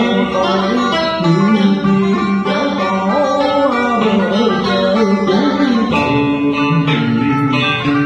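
Cải lương band playing an instrumental passage: plucked đàn kìm (moon lute) and electric guitar, the guitar's notes sliding and bending in pitch.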